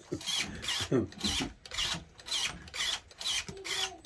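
Axial SCX24 mini crawler's drivetrain grinding and rasping in a regular rhythm, a bit over two pulses a second, each pulse carrying a small wavering motor-and-gear whine. A dog bone (driveshaft) is broken.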